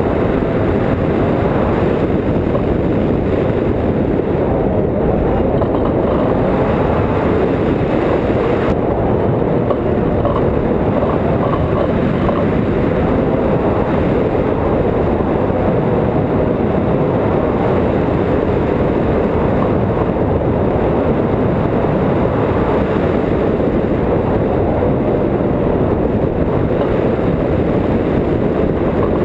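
Steady, even rush of airflow over a frame-mounted camera's microphone in hang glider flight: loud, unbroken wind noise.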